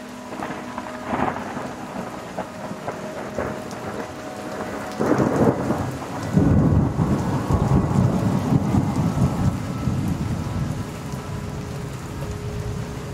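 A thunderclap about five seconds in, then a long low rumble of thunder rolling on and slowly fading, over steady rain. Fainter cracks of thunder come in the first few seconds.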